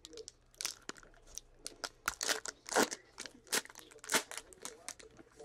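Foil wrapper of a 2017 Panini XR football card pack being torn open and crinkled by hand: an irregular run of crackles and rustles.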